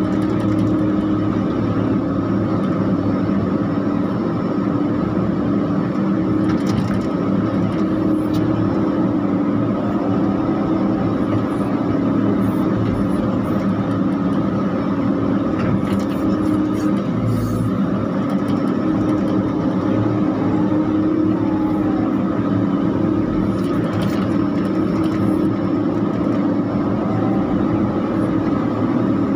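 CAT E120B hydraulic excavator working: its diesel engine runs steadily under load while the Kawasaki K3V hydraulic pump whines, heard from inside the operator's cab. A fainter whine rises and falls a few times as the boom and bucket move.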